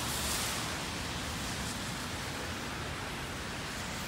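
Heavy rain falling steadily on wet pavement, a continuous even hiss.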